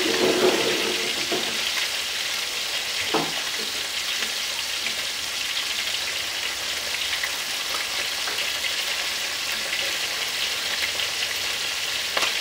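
Whole fish deep-frying in oil in a round electric pan: a steady sizzle with fine crackling, a brief louder burst right at the start and a single sharp click about three seconds in.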